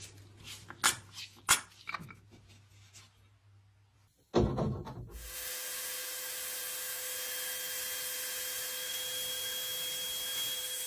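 A few sharp clicks and knocks of metal parts being handled, then a loud low thump about four seconds in. After that comes a steady hiss with a faint, even whine under it, from work on a rusty car horn.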